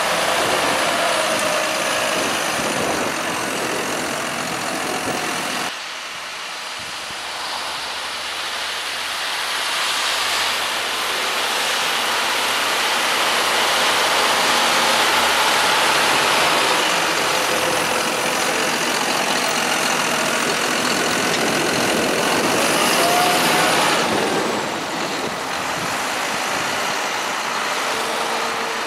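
John Deere 6190R and 6215R tractors' six-cylinder diesel engines running as they drive up and down a maize silage clamp, rolling and compacting the chopped maize. The sound changes abruptly twice.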